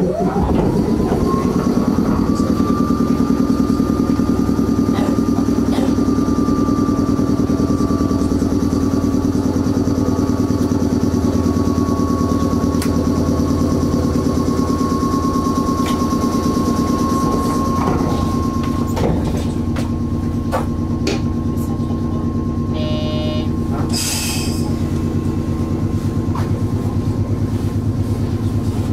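On-board machinery of a stationary electric train starting up and running steadily: a whine that rises quickly in the first second and then holds at one pitch over a low hum. Near the end a short electronic tone sounds, followed by a brief hiss.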